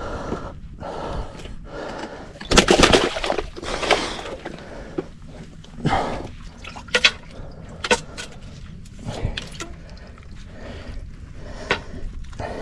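Sea waves breaking on a rocky shore, with one loud rush of water from about two and a half to four and a half seconds in. Scattered sharp clicks and knocks follow.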